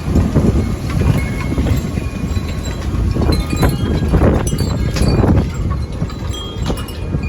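Strong gusting wind blowing hard across the microphone: a loud, deep rush that swells and eases with each gust.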